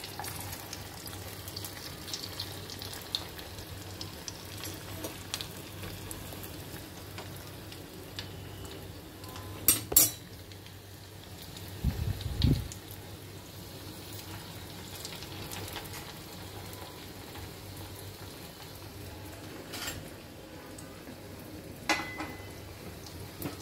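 Potato veg nuggets deep-frying in hot oil in a black kadai: a steady sizzle. A couple of sharp clicks about ten seconds in, a low thump soon after, and a few lighter clicks near the end.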